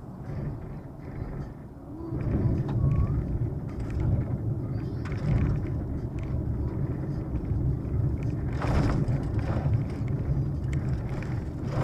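Car driving onto a rough gravel road, heard from inside the cabin: a steady low rumble of tyres and body that grows louder about two seconds in as the tarmac gives way to gravel, with a few brief knocks and rattles from the rough surface.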